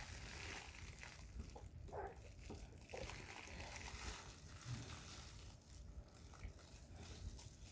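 Faint eating sounds of a small child tearing at and chewing pig's trotters, with soft scattered handling noises and a few brief murmurs.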